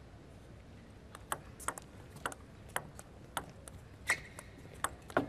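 Table tennis rally: the plastic ball ticking sharply off the rackets and the table, about two hits a second, starting about a second in. There is a brief squeak about four seconds in.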